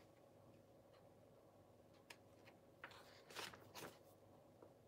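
Near silence: room tone with a faint steady hum, and a few faint paper rustles from an instruction booklet being handled, the plainest two a little after three seconds in.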